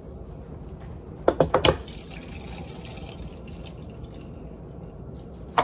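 A quick run of about four sharp knocks and clatter a little over a second in, over a steady watery hiss, with one more knock near the end.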